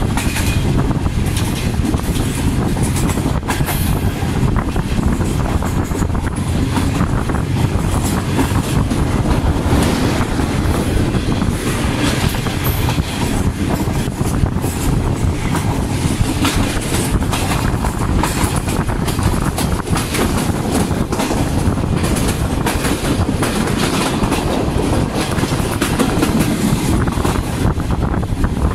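ZCU-20 diesel locomotive running at speed, heard from beside the locomotive: a steady low engine drone with the wheels clattering over rail joints.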